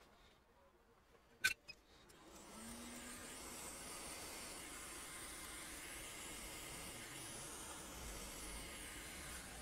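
A sharp click, then a hot-air rework gun starts blowing about two seconds in, with a steady airy hiss.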